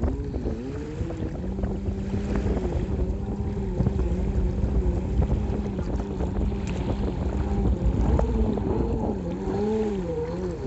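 Sea-Doo 580 jet ski's two-stroke twin engine running at speed on open water. Its pitch swoops up and down at the start and again near the end, and holds steadier in between. Wind buffets the microphone.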